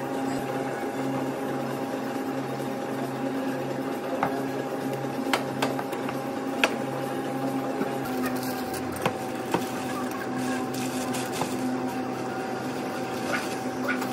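Steady electrical hum of café equipment, with a low pulsing note that stops about halfway. Over it come light clicks and rustles from paper cup sleeves being handled and stacked.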